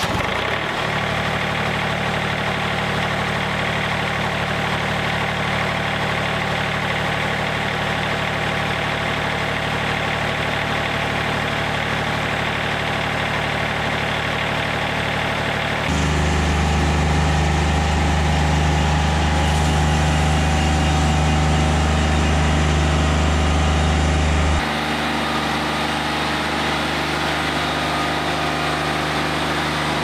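Yanmar diesel engine of a Wood-Mizer LT40 Wide sawmill running steadily, freshly started after an oil change. About halfway through it turns louder and deeper for several seconds, then goes back to a steadier, lighter note.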